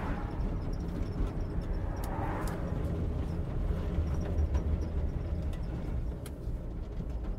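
1979 Chevy C20 pickup rolling with its engine stalled: a steady low rumble of tyres and chassis, with a few light knocks and rattles. The 454 big block has died, and it sounded starved for fuel.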